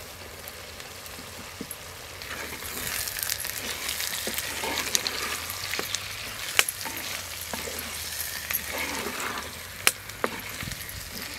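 Chopped tomatoes sizzling in hot oil with onions in a clay pot, stirred with a wooden spatula; the sizzle swells about two seconds in, and the spatula knocks sharply against the pot a few times in the second half.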